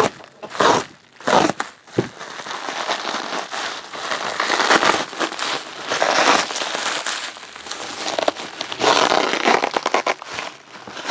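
Plastic wrapping crinkling as a sealed trading-card pack is handled and torn open. A few short rustles come first, then continuous crinkling.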